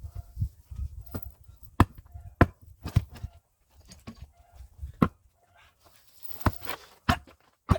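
Hand axe chopping firewood, a series of sharp blows about half a second to a second and a half apart, sped up to double speed.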